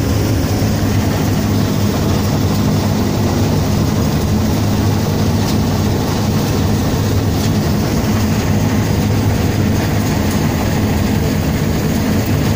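Rice combine harvester running steadily as it cuts paddy: a loud, even low drone of its engine and cutting and threshing machinery.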